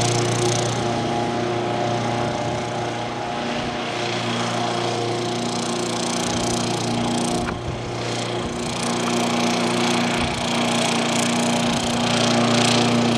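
Remote-controlled lawnmower's engine running steadily, with a brief dip in level a little over halfway through.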